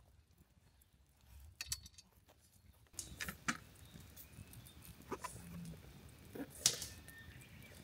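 A Chihuahua–Dachshund mix dog making faint sounds amid a few sharp clicks and taps. The sharpest tap comes near the end.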